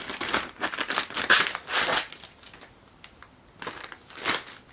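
Clear plastic bag crinkling and rustling as a moulded plastic quadcopter frame arm is pulled out of it. The rustling is busiest in the first two seconds, then drops to a couple of short rustles near the end.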